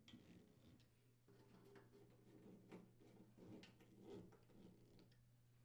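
Near silence, broken by faint scattered clicks and short scrapes of a screwdriver driving screws into the metal burner orifice holder, over a low steady hum.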